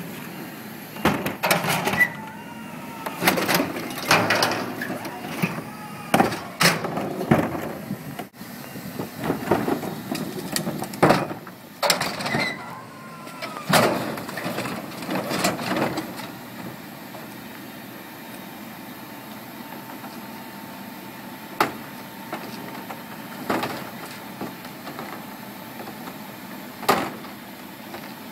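A plastic recycling cart being rolled onto and lifted by a garbage truck's hydraulic cart tipper, with the truck running: a string of clunks and knocks from the cart and metal tipper, with a couple of short squeaks, during the first half. After that a steady hum with a held tone as the cart hangs tipped over the container, broken by a few knocks as it is shaken out.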